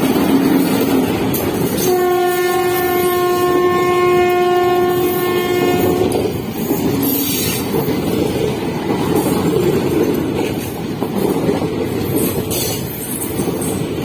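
An Indian Railways WAP-4 electric locomotive and its passenger coaches passing at speed: a steady rush of wheels on the rails, with one long steady blast of the locomotive's horn starting about two seconds in and lasting about four seconds.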